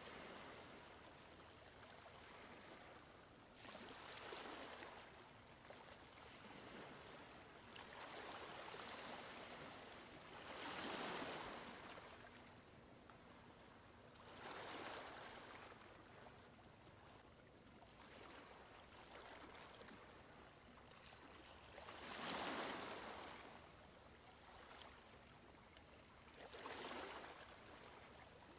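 Near silence, with faint washes of hiss that swell and fade every few seconds, strongest about a third of the way in and again about three quarters in.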